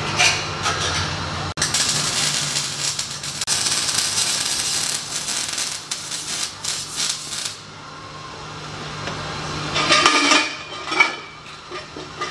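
Electric arc welding on the car's exhaust pipes, crackling and sizzling for about six seconds while the H-pipe is welded in, then stopping. A few metal clanks come near the end.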